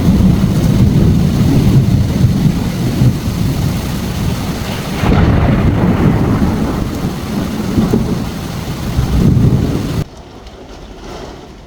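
Heavy rain with a long, deep rumble of thunder rolling under it, which cuts off suddenly about ten seconds in, leaving a much quieter rain hiss.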